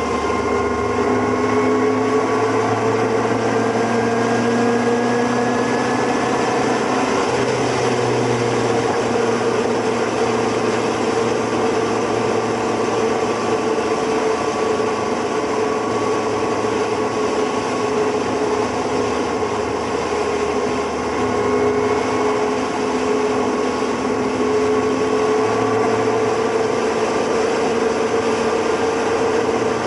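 Motorcycle engine running at a steady cruise, heard from on board the moving bike, its note drifting slightly up and down over a steady rush of wind and road noise.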